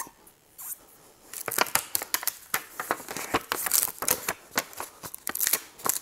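Paper backing being peeled off double-sided tape as the tape is wrapped around a motorcycle handlebar: a quick, irregular run of crackles and small rips that starts about a second and a half in.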